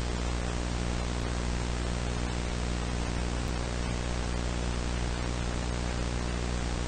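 Analog video static: a steady hiss over a low electrical hum with overtones, unchanging throughout.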